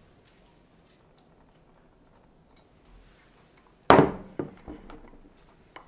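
A ceramic plate set down on a countertop: one sharp clack with a short ring about four seconds in, then a few lighter knocks.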